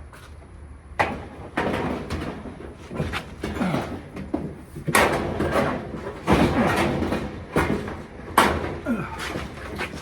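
Sheet-metal dryer parts being handled during reassembly: a run of knocks, clatters and scraping, with a few brief squeaks of metal rubbing on metal.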